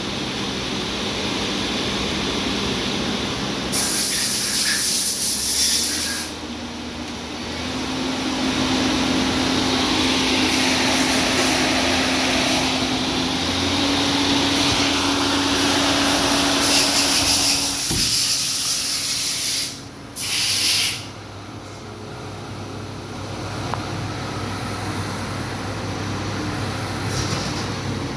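Daewoo Puma CNC lathe spindle running at around 4,000 RPM, a steady whine that steps up in pitch twice. Loud hissing comes in twice, from about 4 to 6 seconds and from about 17 to 21 seconds, with a single click near 18 seconds.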